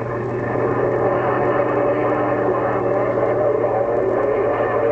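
CB radio receiver putting out a distant station's signal, garbled and buried in static, with a steady hum and whistling tones.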